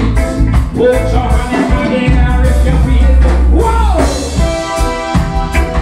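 Live reggae band playing: a heavy bass line, drum kit and electric guitar, with a man singing over it and his voice sliding down in pitch about four seconds in.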